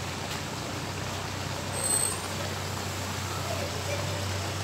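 Fish and vegetable tagine simmering in a pan over a gas burner: a steady hiss with a low hum underneath, and a brief louder sound about two seconds in.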